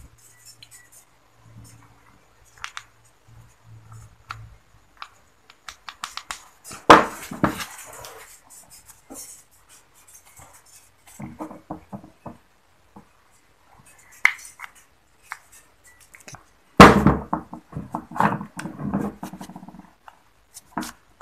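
Scattered clicks and knocks of the metal parts of a two-stroke oil pump being handled on a hard work surface, with a loud clatter about seven seconds in and a longer burst of handling noise near the end.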